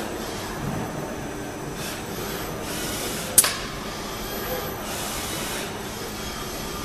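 XKNC-100GL CNC lathe cell with its RT03 loading robot running: a steady machine hum with several short hisses, and one sharp clack about three and a half seconds in.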